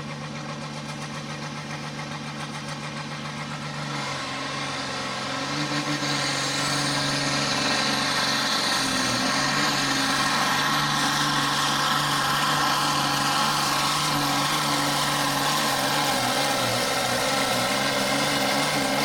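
Pro Farm pulling tractor's turbocharged diesel engine running flat out under load as it drags the weight-transfer sled. The note is steady, grows louder about four seconds in, and a high whistle rises in pitch over it.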